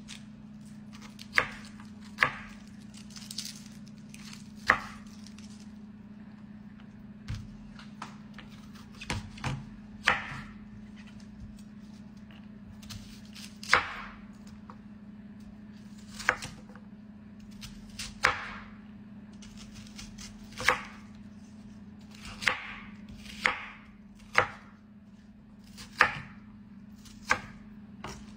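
Chef's knife chopping a white onion on a wooden cutting board: single sharp knocks of the blade striking the board, spaced irregularly about a second or two apart.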